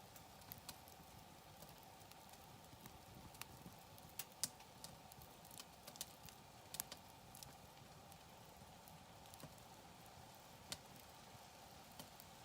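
Wood campfire crackling, with irregular sharp pops and snaps, a few of them louder.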